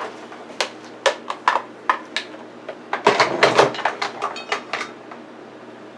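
Kitchenware being handled off to the side: a run of sharp clicks and knocks, with a denser clatter of metal pans about three seconds in.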